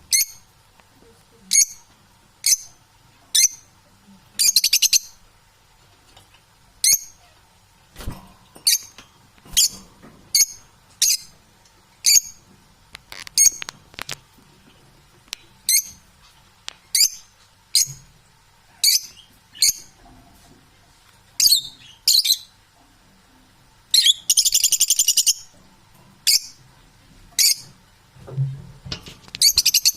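Parrot giving short, high chirps about once a second, with two longer, rapidly pulsing calls: one about four seconds in and a longer one near the end.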